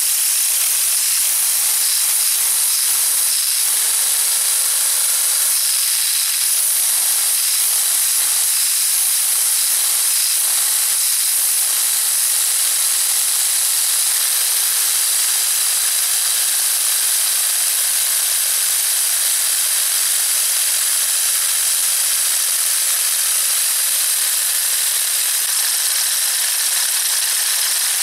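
3D-printed air-powered Wankel rotary engine running on compressed air: a loud, steady hiss of air rushing through it, with a faint whirr from the spinning rotor. The whirr wavers up and down in pitch in the first half, then slowly falls in pitch in the second half.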